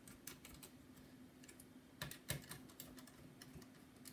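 Faint small clicks and taps of hands and a precision screwdriver on a laptop's plastic bottom cover as its screw is driven in, with two slightly louder clicks about two seconds in.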